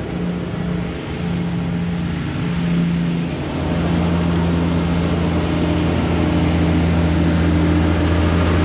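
Tractor-trailer's diesel engine drawing nearer, a steady low hum that grows stronger and louder from about three and a half seconds in.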